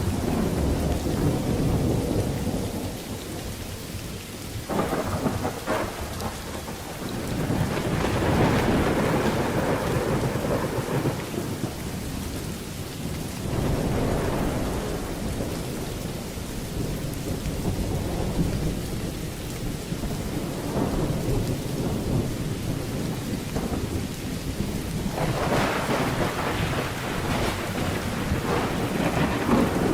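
Rain falling steadily while thunder rumbles, the rumble swelling and dying away several times, loudest about a third of the way in and again near the end.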